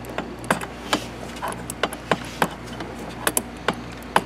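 Sharp metallic clicks and clinks of a wrench tightening a fitting, about a dozen at uneven spacing.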